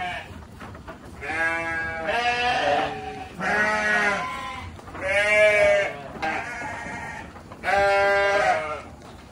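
A series of about six long, wavering voice-like calls, each held for most of a second, with short gaps between them.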